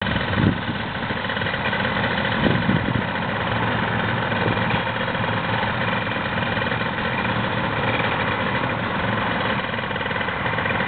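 Paramotor engine and propeller running at steady revs during a launch, with no change in pitch. A couple of brief low thumps cut in about half a second and two and a half seconds in.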